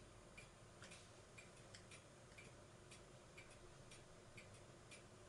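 Near silence, with faint regular ticking about twice a second over a low hum.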